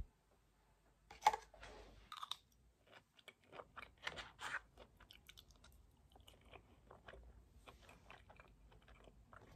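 Faint chewing of a mouthful of food, with small clicks of a plastic spoon against a plastic takeout box and a sharper click about a second in.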